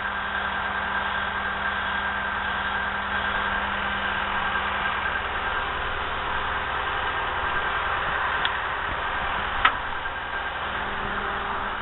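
Skid steer engine running steadily with a constant hum, with a short sharp click about ten seconds in.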